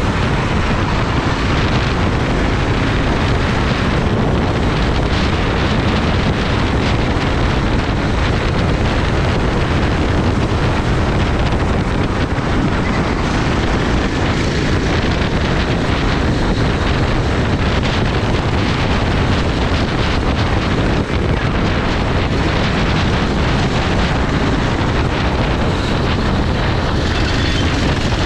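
Racing kart's engine running steadily at speed, heavily covered by wind noise on the microphone.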